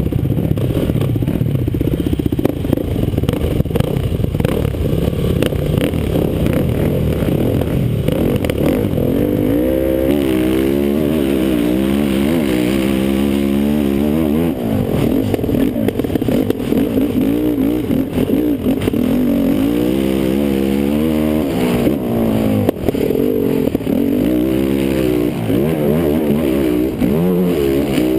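Kawasaki KFX450R quad's single-cylinder four-stroke engine racing, with a dense, rough engine din for the first third, then its pitch rising and falling over and over as the throttle is worked on and off.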